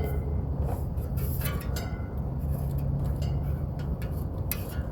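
Steady low mechanical hum with a few light clicks and rustles of wiring being handled.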